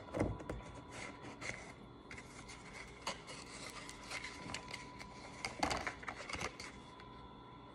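Cardboard perfume packaging and paper cards being handled: rubbing and sliding with scattered light clicks and knocks, loudest near the start and again a little before the end.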